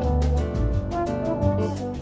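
Background music with a steady beat, a bass line and held melody notes.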